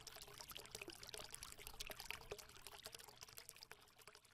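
Faint trickling, water-like sound of many small crackling ticks, dying away near the end.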